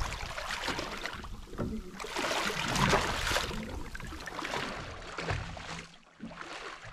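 Sea water sloshing and lapping against the side of a small fishing boat, an uneven rushing that swells and fades.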